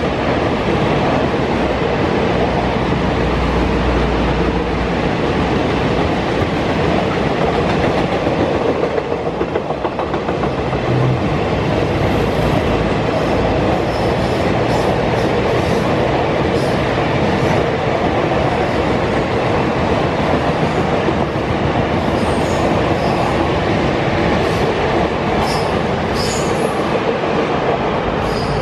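Loaded open freight wagons rolling past: a steady rumble and clatter of steel wheels on rail. In the second half there are short high squeals from the wheels.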